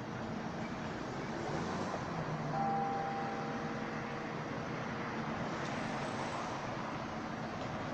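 Steady city street traffic noise, with a single church bell struck about two and a half seconds in, its tone ringing and fading over a couple of seconds.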